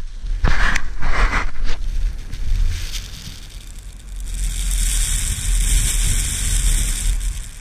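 Rustling and bumping as the action camera is handled, for about the first two seconds. From about four seconds in, wind blows across its microphone: a steady high hiss over a low buffeting rumble.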